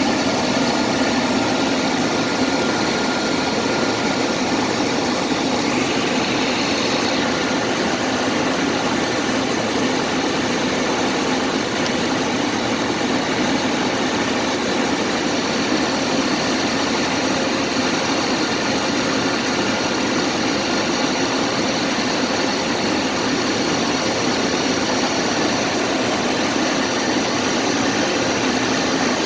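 Vehicle engine idling steadily, with a faint high whine on top. The vehicle's alternator is one the owner believes is failing.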